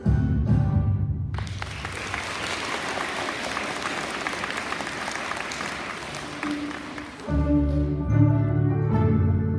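A student string orchestra of violins and cellos ends on a chord, then the audience applauds for about six seconds. Near the end the strings start playing again.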